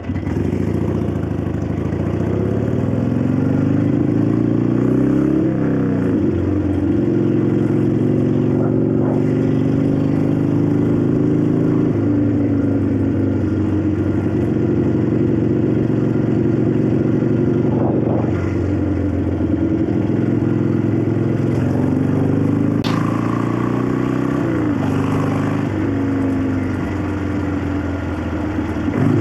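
A 1965 Harley-Davidson XLCH Sportster's 900 Ironhead V-twin running on the road. Its note climbs as it accelerates over the first few seconds, holds steady, then drops and climbs again a few more times as the bike slows and picks up speed.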